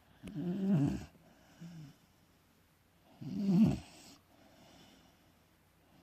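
Beagle snoring in its sleep: two loud snores about three seconds apart, with a softer one between them.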